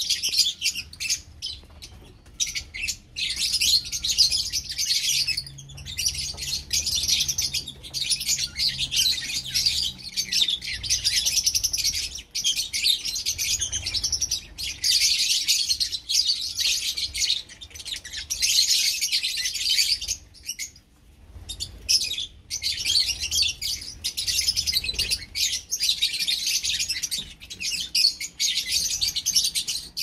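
A flock of lovebirds chattering: a dense, continuous run of high chirps, broken by short pauses about two, twelve and twenty-one seconds in.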